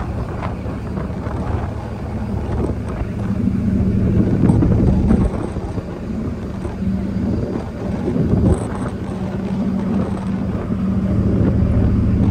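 Wind gusting across the microphone on the open deck of a car ferry under way, over the steady low drone of the ship's engines.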